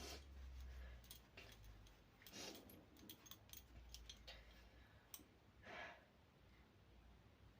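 Faint, near-silent room sound: a woman's three short breaths, near the start, about two and a half seconds in and near six seconds in, with scattered light clicks between them.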